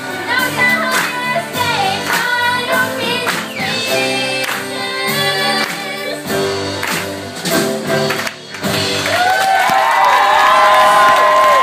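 Girls' voices singing in harmony with a live country band of fiddle, piano, bass and drums, with a steady drum beat. About eight seconds in the beat breaks off and the voices hold one long final note over the band.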